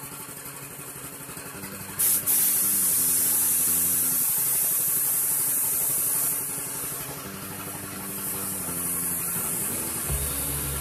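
Gravity-feed spray gun hissing with compressed air as it sprays matte clear coat onto a motorcycle fuel tank. The hiss starts abruptly about two seconds in and eases a little after about six seconds, over background music.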